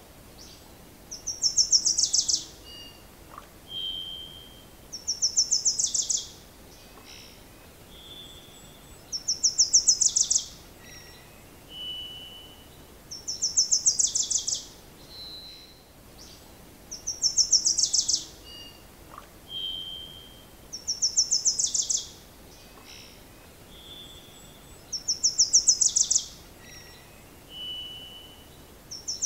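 A songbird singing a rapid, high trill about a second long that drops in pitch at the end, repeated about every four seconds. Short single whistled notes come in the gaps between the trills.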